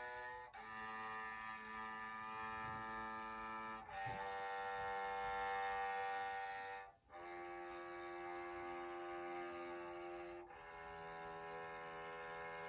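Yamaha SVC-210 silent electric cello bowed in long sustained notes, one note to each full bow stroke. The pitch changes about every three and a half seconds, with a short break at the bow change about seven seconds in.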